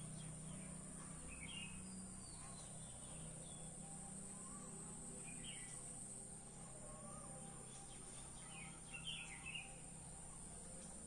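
A few short bird chirps scattered through, the loudest about nine seconds in, over a steady high-pitched insect drone.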